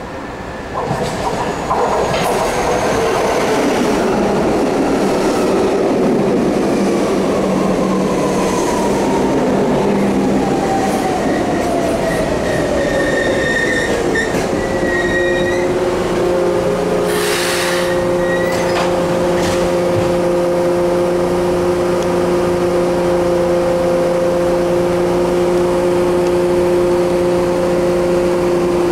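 Original-build PATCO rapid-transit train pulling into the station: a rumble of wheels and running gear with a whine that falls steadily in pitch as it slows, and brief high squeals near the middle. After it stops, about halfway through, a steady hum of several tones.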